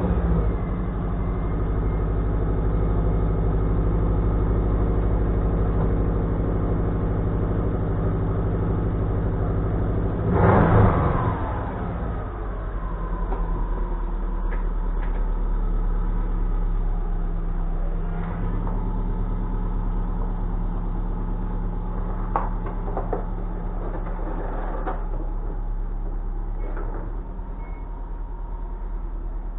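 A vehicle engine that has just started, idling steadily, with one brief rev about ten seconds in. A few light clicks or knocks come later.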